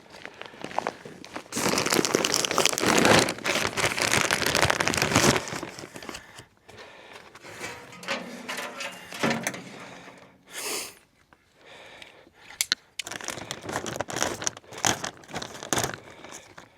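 Crinkling, crackling and tearing of material being handled. It is loudest and densest for a few seconds near the start, then thins to scattered rustles and short bursts.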